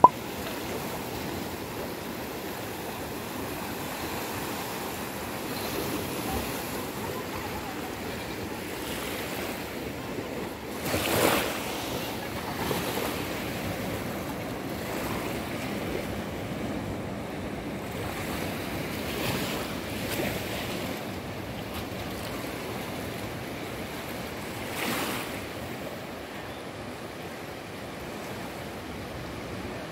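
Sea waves washing in over a shallow beach, a steady rushing wash that swells and fades, with one louder wave surging about a third of the way through.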